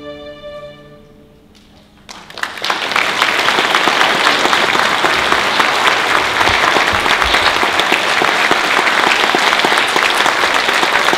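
A string orchestra's last held chord fades away, and about two seconds in an audience breaks into loud, steady applause.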